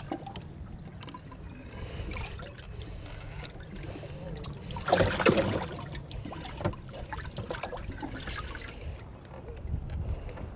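Water sloshing and trickling in a bass boat's livewell as hands and bass move in it, with a louder splash about halfway through.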